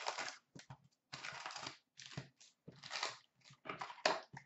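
A 15-16 Fleer Showcase hockey card box's cardboard being torn open and its wrapped card packs crinkling as they are pulled out and handled: a string of short tearing, rustling bursts with brief gaps between them.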